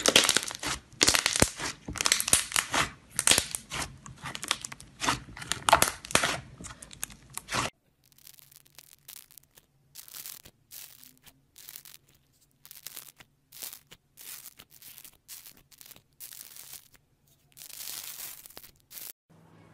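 Thick white slime being squeezed and pressed by hand, giving a dense run of loud crackling and tearing for about eight seconds. Then pink aerated slime with a honeycomb surface is poked and dragged with an earphone plug, giving quieter scattered crackles and pops and a louder burst near the end.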